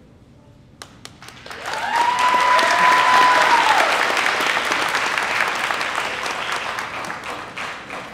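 Audience applauding in a hall: clapping starts about a second in, swells quickly to a peak, then slowly dies away. One long high-pitched cheer is held for about two seconds over the clapping near its peak.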